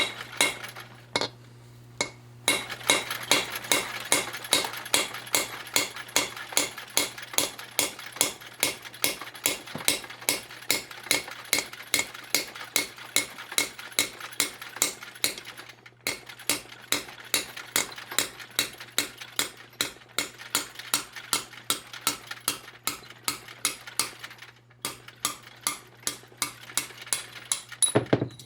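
Hammer blows on a punch driving a valve guide out of a Ford 172 diesel cylinder head: rapid, steady metallic strikes, about three a second, each with a ringing clink. They pause briefly about 16 s and 25 s in.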